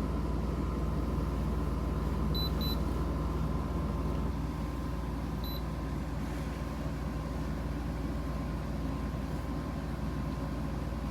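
Steady low rumble and hum with a faint constant tone above it, broken by a few short high beeps: two in quick succession a couple of seconds in, and one more a few seconds later.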